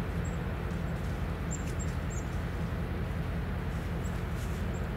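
Steady low hum of an idling engine, with a few short, high bird chirps about a second and a half in and again near the end.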